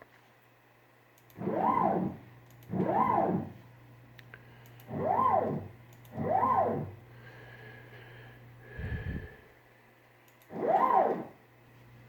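Stepper motors of a homemade Gatton CNC router making five short jog moves, the first four in two pairs. Each move is a whine that rises in pitch as the motor ramps up and falls as it slows to a stop, over a steady low hum.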